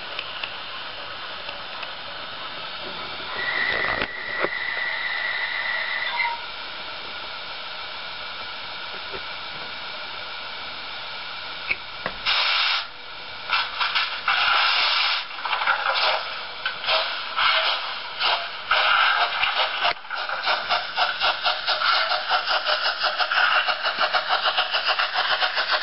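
Sound decoder of a Märklin H0 model steam locomotive: a steady hiss, with a single high whistle held for about three seconds early on, then steam exhaust chuffs starting about halfway in, slow at first and quickening to a steady beat of several a second as the locomotive gets under way.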